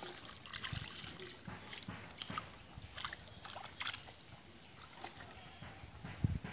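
Hands working through shallow muddy water and grass: irregular light splashes, squelches and rustling, with a heavier low thump near the end.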